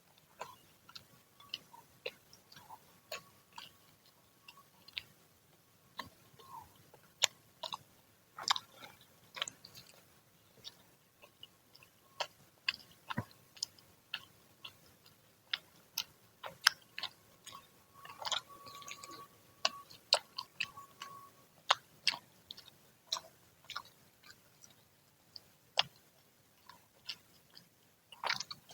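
Close-up eating sounds: crunchy, freshly fried gorengan fritters being bitten and chewed, irregular sharp crunches and mouth clicks.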